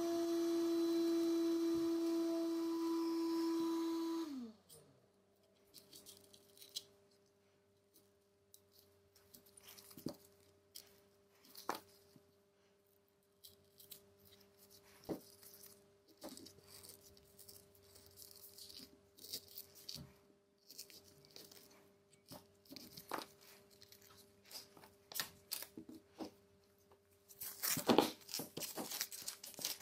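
A steady machine whine that winds down and stops about four seconds in. Then come scattered small clicks and taps of tools working on a Samsung Galaxy S9 during a battery replacement, with a faint hum underneath and a burst of crackling, tearing noise near the end.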